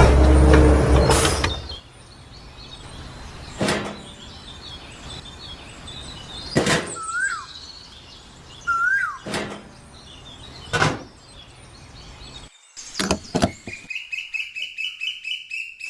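A loud horn-like sound cuts off about a second and a half in. Then bird chirps over quiet outdoor ambience, broken by a few sharp knocks, with a rapid run of high chirps near the end.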